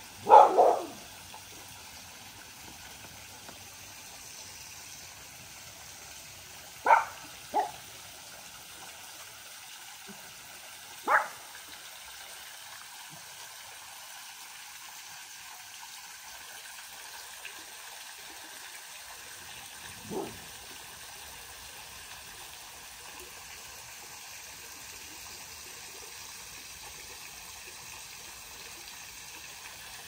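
A dog barking in short single barks (two close together at the start, two more about seven seconds in, one at eleven seconds and a fainter one around twenty seconds) over the steady trickle of a shallow creek.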